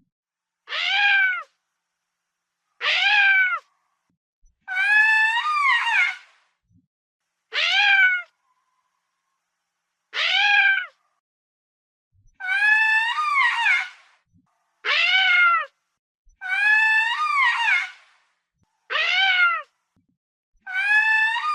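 Lemur calling, a series of about ten separate calls, each rising then falling in pitch, with short silent gaps between them.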